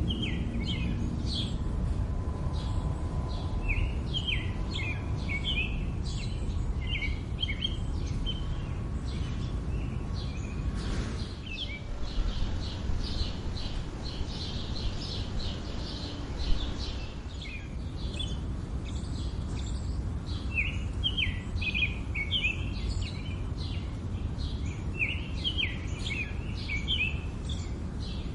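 Small birds chirping over and over in quick, short calls, over a steady low background rumble. A single sharp tap stands out a little past halfway.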